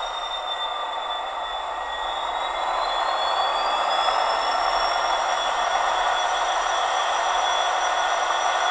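Hornby HM7000 TXS decoder playing its Class 66 diesel sound profile through a small sugar-cube speaker. The locomotive idles, and about three seconds in the air compressor sound is switched on, adding more steady noise and a high whine that rises in pitch and then holds.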